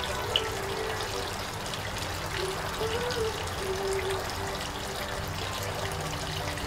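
Water bubbling up from the top of a stone garden fountain and running steadily down it. A single short, sharp tick stands out about half a second in.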